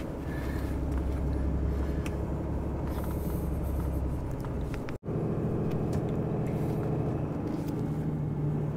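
Truck engine running steadily, a low hum heard from inside the cab, with the sound dropping out for an instant about halfway through.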